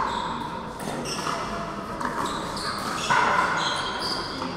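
Pickleball rally: paddles popping against the plastic ball several times, the loudest hit about three seconds in, echoing in a large hall. Short high squeaks from sneakers on the court come between the hits.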